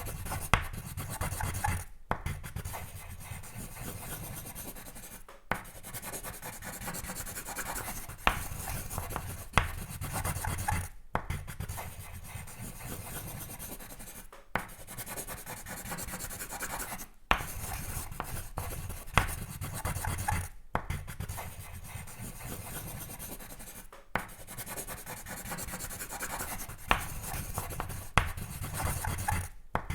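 Sketching on paper: continuous scratchy strokes of a drawing tool, with occasional sharp ticks, broken by short pauses every few seconds.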